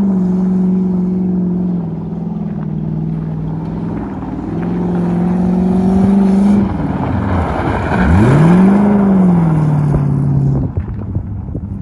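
Lexus SC400's V8 held at high revs as the car spins donuts on loose gravel, the rear tyres spraying stones. The engine note dips and climbs back several times, sweeps right down and up again about two-thirds through, then falls to a lower, steadier note about a second before the end.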